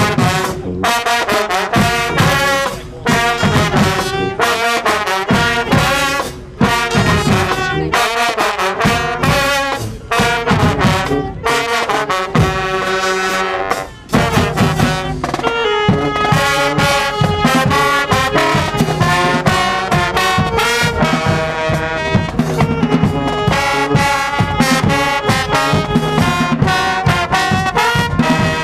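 High school marching band playing: brass horns, trombones and trumpets, over a driving drum beat, with short breaks in the music in the first half and continuous playing after that.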